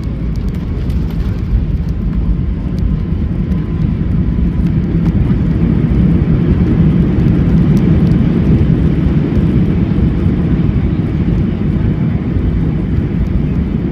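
Airbus A320 landing rollout heard from inside the cabin: a loud, steady rumble of engines and wheels on the runway that swells a few seconds in and then eases slightly.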